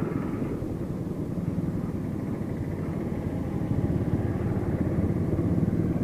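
Motorcycle engine running steadily as the bike rides slowly through traffic, heard up close from the bike itself, growing slightly louder in the second half.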